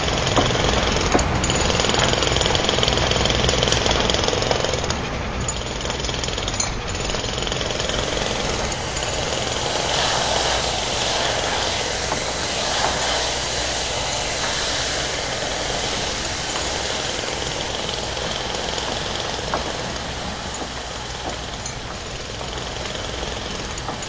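Loud, continuous mechanical noise: a motor running steadily at first, then from about eight seconds in a hair dryer blowing.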